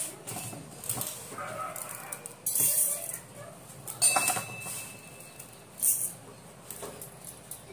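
Handfuls of rice grains dropped into a stainless-steel mixer-grinder jar, each a short rattling patter with metallic clinks. The loudest come at about two and a half, four and six seconds in, the one at four seconds with a brief metallic ring.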